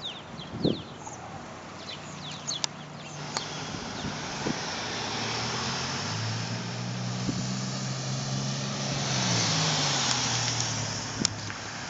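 A motor vehicle driving past: a steady engine hum grows louder and drops in pitch about nine seconds in as it goes by, with rushing tyre noise peaking near the end.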